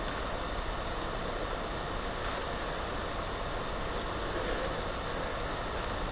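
Steady background hiss with a faint low hum underneath. It stays level throughout, with no distinct events.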